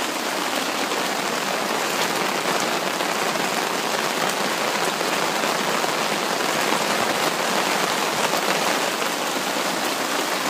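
Heavy rain pouring steadily onto wet ground and the river surface: a dense, even hiss of drops that never lets up.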